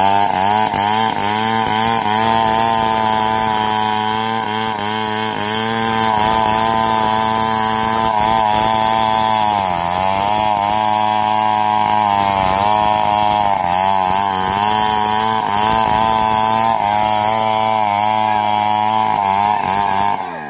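Two-stroke chainsaw held at high revs, with a couple of brief dips in pitch around the middle. Near the end the revs fall off sharply.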